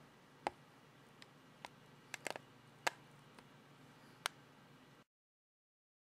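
About eight sharp, irregularly spaced small clicks over a faint hiss, a few bunched together just after two seconds in; the sound cuts off to dead silence about five seconds in.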